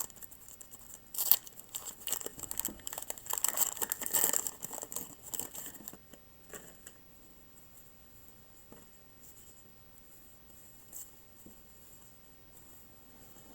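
Wax-paper wrapper of a 1985 Topps baseball card pack crinkling and tearing as the pack is opened, with a sharp click about a second in. The crinkling stops about six seconds in, leaving only a few faint rustles and clicks.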